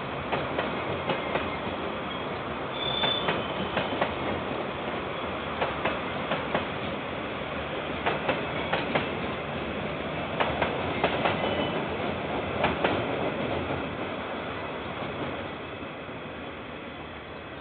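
KiwiRail train rolling past, its wheels clicking irregularly over the rail joints over a steady rumble, with a brief high wheel squeal about three seconds in. The sound dies away near the end.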